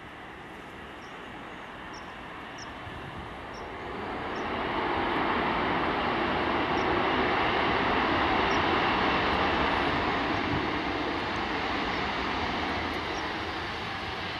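Boeing 737-400's CFM56 turbofan engines spooling up to takeoff thrust about four seconds in, then running loud and steady as the jet rolls down the runway. Faint bird chirps in the first few seconds.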